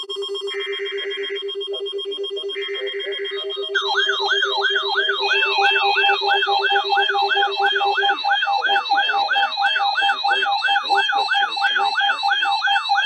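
Emergency Alert System broadcast tones: the end of a three-burst digital data header, the buzzy paired-tone bursts about a second apart, then a warbling siren-like attention tone sweeping up and down about two and a half times a second. A steady low tone sounds beneath the data bursts and stops about eight seconds in.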